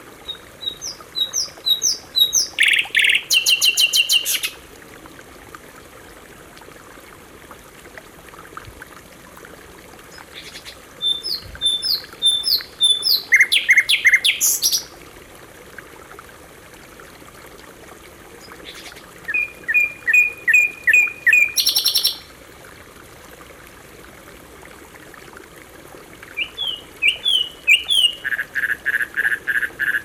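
Canary singing in four bursts of quickly repeated chirping notes, each a few seconds long with pauses between. Under the song runs a steady rush of flowing water.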